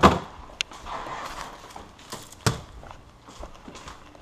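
Footsteps and handling noise while moving about a kitchen, with a thump right at the start and a sharp knock about two and a half seconds in.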